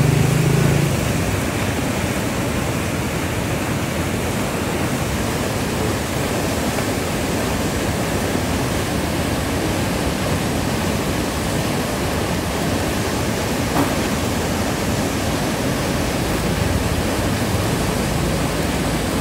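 Water rushing and churning through a dam outlet: a steady, even rush of noise.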